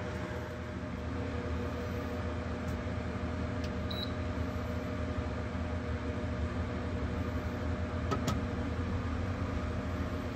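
Steady low hum of a running fan or appliance, with a short faint high beep about four seconds in and a sharp click about eight seconds in, as an Anycubic Wash & Cure Plus's control knob is set and pressed to start curing.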